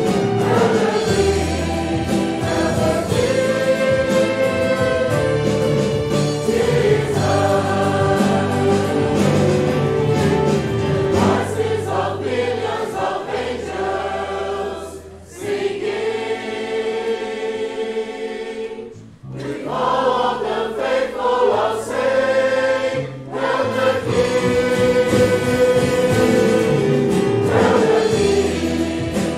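Church congregation singing a hymn refrain together, backed by instruments carrying a steady bass line. The music briefly drops away twice a little past the middle.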